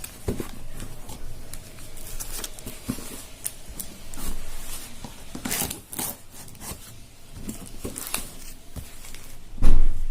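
Cardboard and plastic packaging being handled, torn and rubbed while a box is opened, with scattered irregular clicks and scrapes. A loud thump about nine and a half seconds in.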